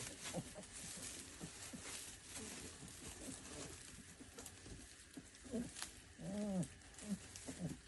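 Central Asian Shepherd puppies making short whimpering and grunting calls. About six seconds in comes one longer whine that rises and falls.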